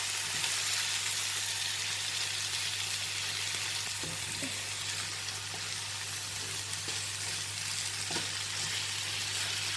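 Sliced potato, onion, capsicum and carrot frying in oil in a pot, a steady sizzle, with a few faint scrapes as the vegetables are stirred.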